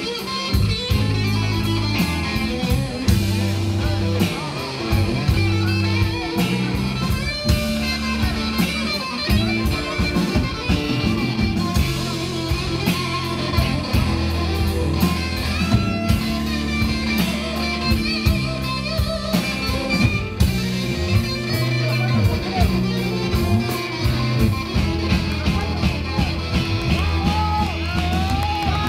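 Live blues-rock band playing: electric guitars and bass guitar over a drum kit keeping a steady beat.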